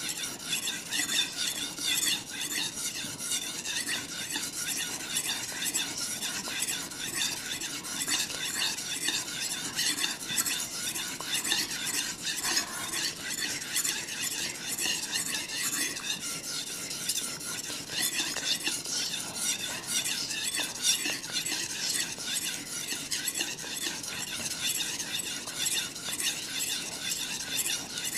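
Kitchen knife blade pushed back and forth over a wet whetstone: a steady scrape of steel on stone, stroke after stroke without a break. It is sharpening a dull knife, part of a run of 150 strokes on one side.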